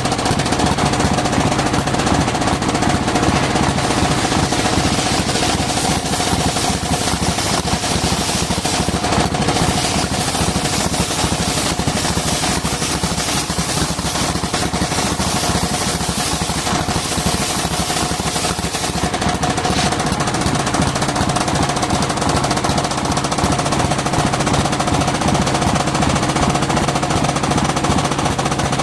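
Engine of a circular-saw sawmill running steadily with a rapid chugging beat and a steady whine.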